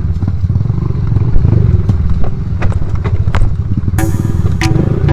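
A Honda XRM underbone motorcycle's small single-cylinder engine running as it rides a rough, rocky dirt trail, with clattering knocks as the bike jolts over the ground.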